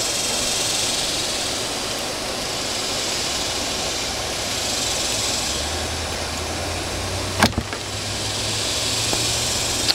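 Steady background hiss, with a low hum joining about five seconds in. One sharp click about seven and a half seconds in, a wire stripper cutting through the insulation of a thin wire.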